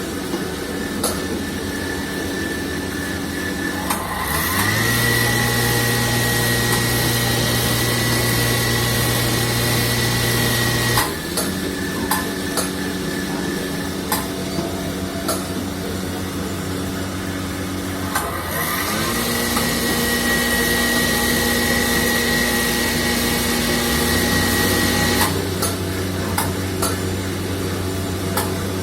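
CNC machine running with a steady hum and scattered clicks. Twice its motor spins up with a rising whine, holds a steady whine for about seven seconds, then cuts off suddenly.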